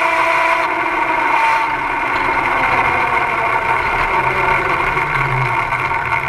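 Electric go-kart drive, a car alternator used as a motor turning a roller chain over a 3D-printed sprocket, whining steadily. The pitch sinks slowly from about two seconds in as the kart slows.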